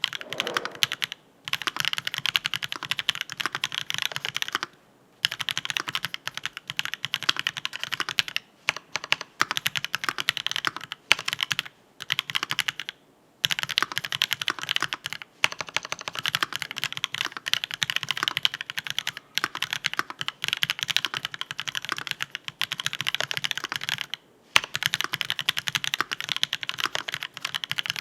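Fast, continuous typing on a MONSTAR XO V3 mechanical keyboard with a brass plate, Marshmallow switches and Aifei ABS keycaps: rapid keystroke clacks with a few short pauses.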